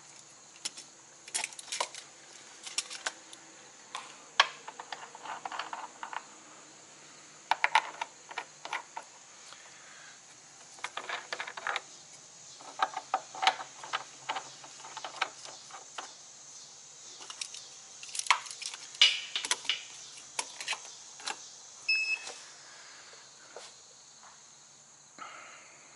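Irregular metallic clicking and clinking of battery cables and tester clamps being handled in a truck's battery box, as the battery tester's clamps are moved to the next battery for an individual test. A brief electronic beep sounds late on.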